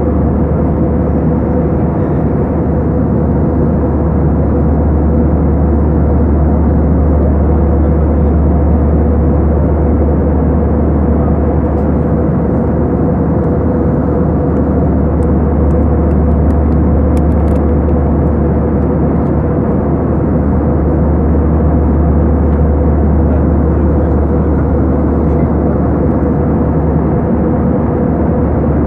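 Passenger airliner's engine and airflow noise: a steady low rumble with a held hum above it, unchanging in level.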